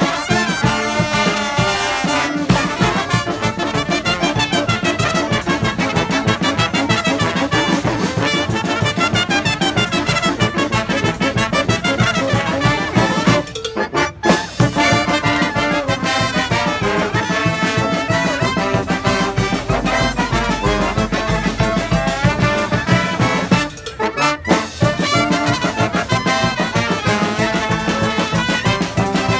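Street marching band of brass horns playing a lively tune over a steady beat. The band drops out briefly twice, about halfway through and again about two-thirds through, then comes back in.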